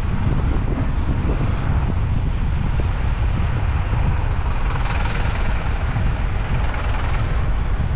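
Steady low wind rumble on the microphone, mixed with street traffic noise.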